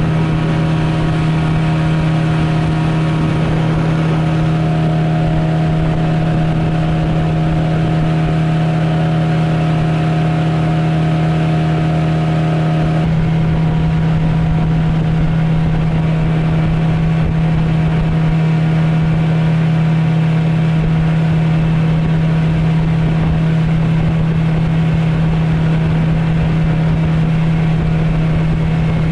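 Suzuki 9.9 hp outboard motor running at a steady speed, driving the aluminium Kazanka-1 boat along under way. It is a loud, even drone, and a few of its higher tones drop away about halfway through.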